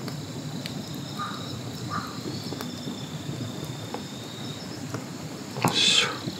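Forest ambience: insects chirping in a steady high trill over a low rustling background, with scattered faint clicks. A short, louder call or cry breaks in near the end.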